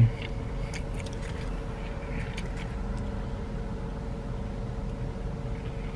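Steady low hum inside a parked car, with a few faint crinkles and clicks from burger wrappers and eating about a second in and again near the middle.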